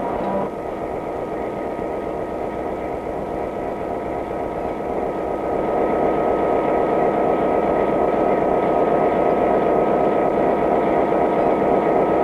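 Steady mechanical drone of a diesel locomotive at a refuelling stop, with a thin steady whine over it; it grows louder about halfway through.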